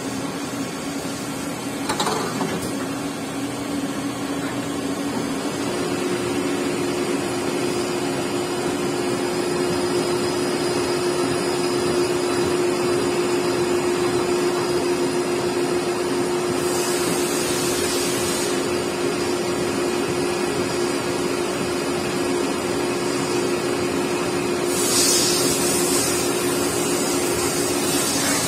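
Nakamura-Tome TMC 15 CNC turning center running its live-tool function: a steady machine hum, with a second steady tone from about six seconds in that stops near the end. A click comes about two seconds in, and two brief hisses come, one past the middle and one near the end.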